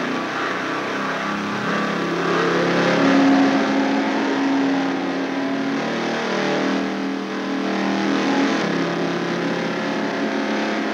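Motorcycle engine accelerating, its pitch rising about two seconds in, then running steadily at speed.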